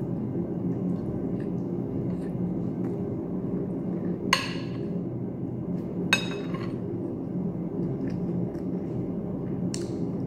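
A metal spoon and fork clink against a ceramic plate while eating: two sharp, ringing clinks about four and six seconds in and a lighter one near the end. A steady low hum underlies them.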